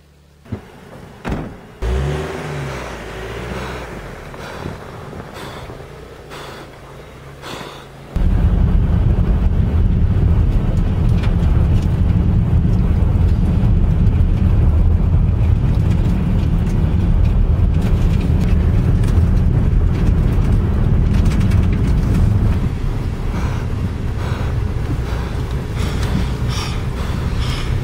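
Car driving, heard from inside the cabin: a loud, steady low rumble of engine and road that cuts in suddenly about eight seconds in and eases slightly near the end. Before it come a few sharp knocks and rustling.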